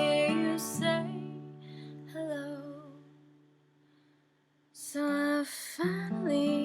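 Solo acoustic guitar with a woman singing. A held, wavering note and the guitar fade away over the first three seconds into a short pause. Singing and strummed guitar come back in about five seconds in.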